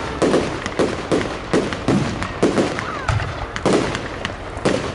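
Fireworks display: a rapid, irregular run of bangs and crackles, several a second.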